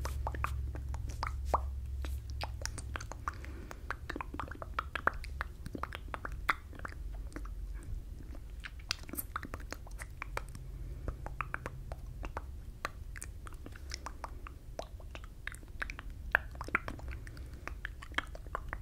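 Close-up mouth sounds into a microphone with a furry windscreen: many small wet clicks and lip smacks, scattered irregularly, over a steady low rumble.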